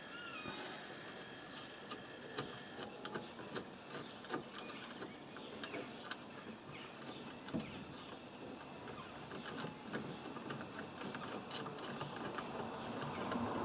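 Scattered light clicks and taps of metal and plastic parts being handled as a van's sliding-door handle and lock mechanism is worked loose by hand.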